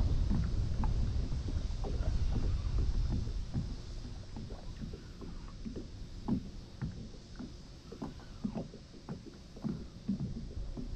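Small waves lapping and slapping irregularly against a kayak hull on choppy water. Wind rumbles on the microphone for the first few seconds.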